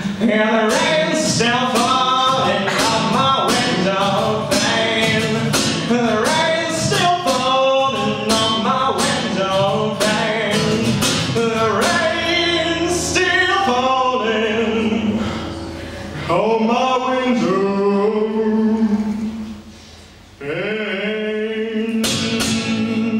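A male voice singing to a strummed acoustic guitar, the strums coming in a steady rhythm. Near the end the sound dies down briefly, then the singing and strumming come back in.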